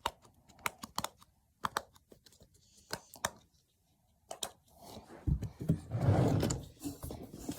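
A fidget toy being played with: irregular, sharp, keyboard-like clicks, then louder rubbing and handling noise from about five seconds in.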